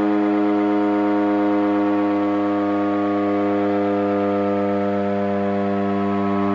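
Emergency alert siren sounding one continuous, loud tone with many overtones, slowly sinking in pitch.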